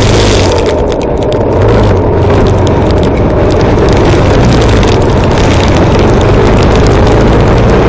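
Harley-Davidson Sportster SuperLow XL883L's 883 cc air-cooled V-twin running steadily under way, mixed with a loud rush of wind and road noise. The level dips briefly about a second in, then holds steady.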